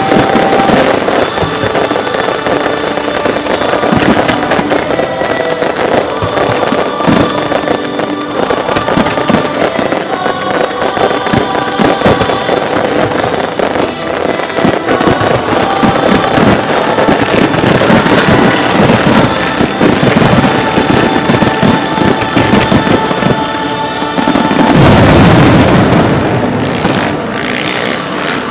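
Fireworks display: a continuous run of bangs and crackling from shells and fountains, with music playing alongside. The densest, loudest volley comes about 25 seconds in.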